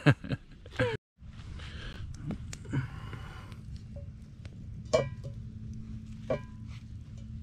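A man laughs briefly, then a stick of butter is rubbed across a hot cast-iron griddle over a campfire, sizzling faintly over a steady low rumble. Two short voice-like calls come near the end.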